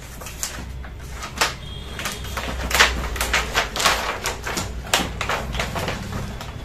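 Thin plastic reflector sheet of an LED TV backlight crinkling and crackling as it is lifted and pulled out of the metal back tray. It comes as a quick run of sharp crackles, loudest in the middle.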